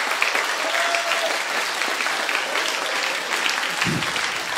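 Audience applauding: many hands clapping in a dense, steady patter, with a brief low thump near the end.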